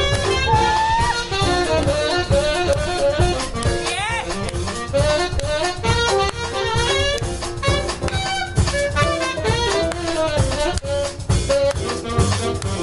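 Jazz big band playing a samba chart live, with saxophones over a drum kit.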